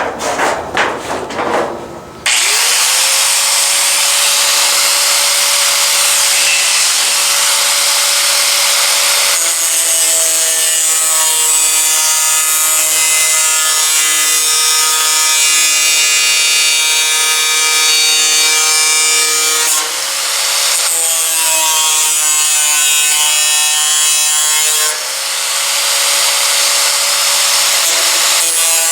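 A few knocks, then a high-speed power cutting tool spins up to a steady high-pitched whine and cuts the truck hood's sheet metal, its pitch sagging briefly twice as it is pressed into the cut.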